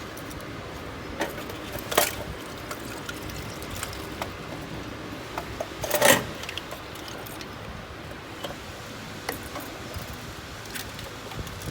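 Scattered light metallic clinks and taps from engine parts and hand tools being handled, with two louder knocks about two and six seconds in.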